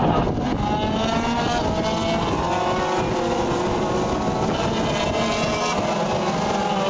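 A pack of racing engines running together as the field circulates behind a pace car, several engine notes overlapping and shifting in pitch.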